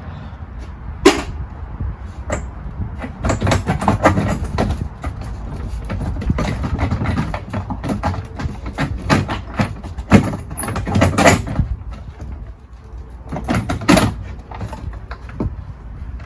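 Irregular clanks and knocks of metal tools and car parts being handled during a car teardown, some ringing briefly, over a steady low rumble.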